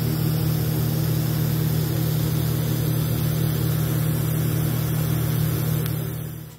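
A machine running with a steady, even drone that drops away suddenly at the end.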